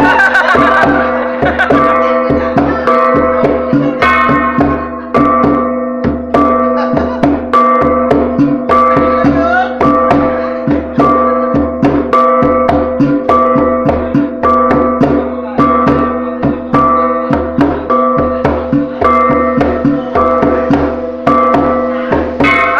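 Iban tabuh, traditional gong music for the ngajat dance: ringing gongs at several fixed pitches struck with drumbeats in a fast, steady rhythm of about three beats a second.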